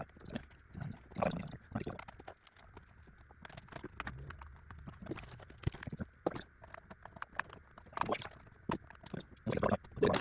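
Irregular light clicks and knocks from handling a keyboard and its small screws while it is being unscrewed for a teardown.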